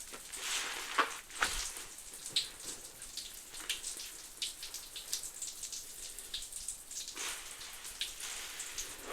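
Soap suds from a mix of Fabuloso cleaner and Mr. Bubble bubble bath crackling and popping, a dense, irregular fizz. A few louder wet squishes stand out about a second in, again shortly after, and around seven seconds.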